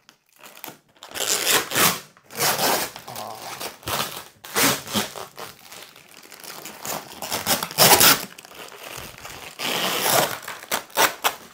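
Thin clear plastic wrapping crinkling and rustling as it is pulled off a boxed machine and bunched in the hands, in irregular loud bursts.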